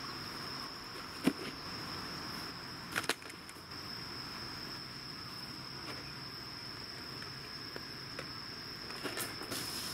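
Insects trilling in one steady high note, with a few sharp knocks: one about a second in and two close together about three seconds in.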